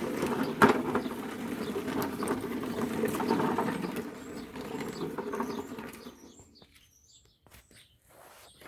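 Lawn mower's small gasoline engine being started after a rebuild, making a rough mechanical noise that fades out about six seconds in. Small birds chirp after it stops.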